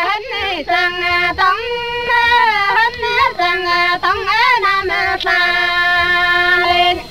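A single high voice singing a slow melody alone, holding long notes with slides between them; the singing stops just before the end.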